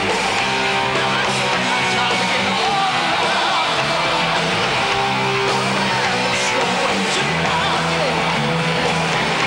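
Heavy metal band playing: electric guitar and drums at a steady beat, with vocals.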